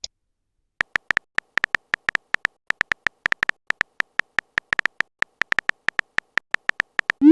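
Typing sound effect of a chat app: a run of quick, irregular clicks, each a short tick at the same pitch. A short rising blip near the end, like a message-sent sound.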